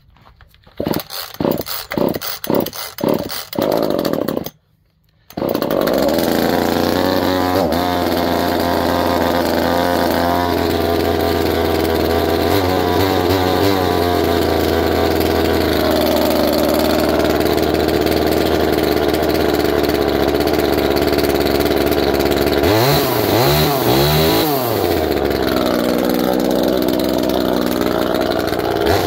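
Small 25cc two-stroke top-handle chainsaw pull-started with a quick series of about seven short pulls, then catching about five seconds in and idling steadily. Near the end the throttle is blipped a few times, the engine note sweeping up and down.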